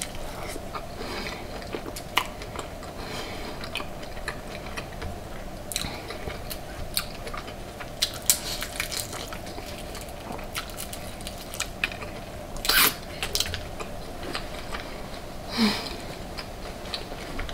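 A person eating close to the microphone: crunchy bites and chewing of deep-fried seafood, with sharp crunches and mouth clicks at irregular intervals and the loudest crunch about three quarters of the way through. A faint steady hum runs underneath.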